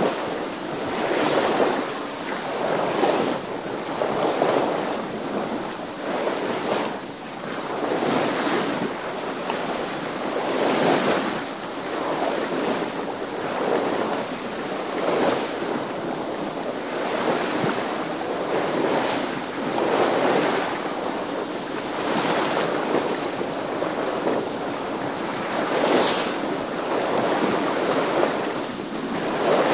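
Water washing and splashing around a sailing boat under way, surging every second or two with sharper splashes now and then, with wind.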